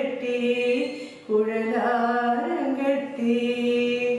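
A woman singing a devotional song in long held notes that step up and down in pitch, with a short breath pause about a second in.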